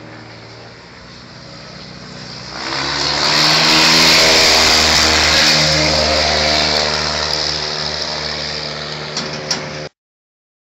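A biplane's piston engine running loud as it makes a low pass over the field: it swells sharply a couple of seconds in, then slowly fades. The sound cuts off abruptly near the end.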